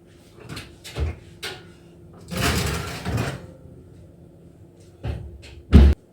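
Household things being handled: a few sharp knocks and clacks, a longer sliding or scraping sound about two to three seconds in, then two more knocks and a heavy thump near the end.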